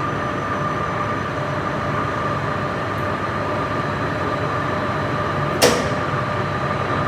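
Steady machinery hum in a chiller plant room with a constant whine over it, and a single sharp clack about five and a half seconds in.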